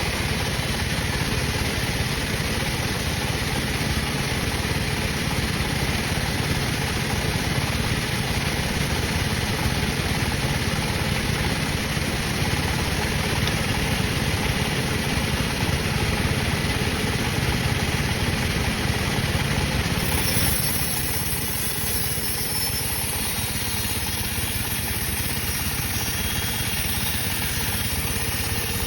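Sawmill saw machinery running steadily with an engine-like hum. About twenty seconds in it gets slightly quieter and its tone shifts, then carries on steadily.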